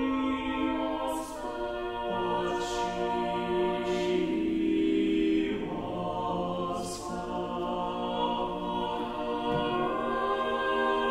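Small mixed-voice chamber choir of sopranos, altos, tenors and basses singing unaccompanied in long held chords, with soft sibilant consonants between the notes.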